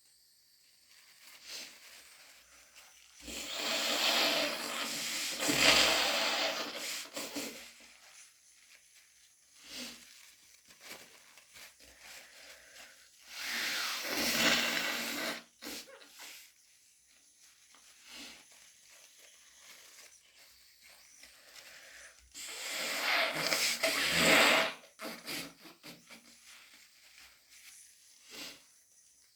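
A woman blowing her congested, runny nose into a tissue three times, each blow lasting a few seconds, with short sniffles in between; her nose is stuffed up by a head cold.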